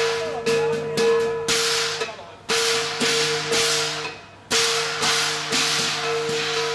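Qilin dance percussion band playing: cymbals crashing about twice a second over a steadily ringing gong tone, the beat dropping out briefly twice.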